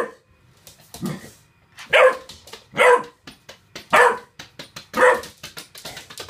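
Three-month-old bullmastiff puppy barking in short, sharp barks, about one a second: five loud ones, with a softer, lower bark about a second in.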